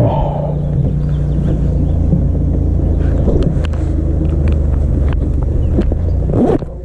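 An engine idling with a steady low rumble, dropping away near the end, with light footsteps and knocks on a floating dock.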